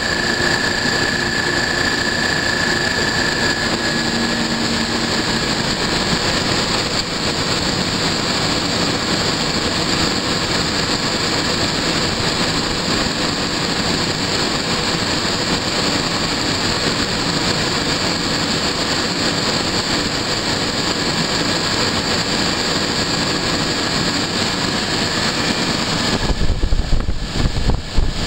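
Three-phase Copeland semi-hermetic refrigeration compressors and their condenser fans running, a steady mechanical drone with a faint high tone that fades out in the first few seconds. About 26 seconds in, an uneven low rumble of wind on the microphone joins.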